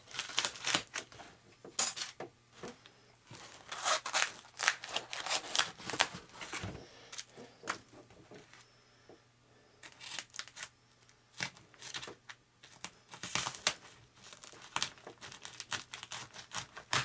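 Hobby knife cutting and prying through burnt, melted EPP foam on an RC flying wing: scratchy crackling and tearing strokes in clusters, with a pause partway through.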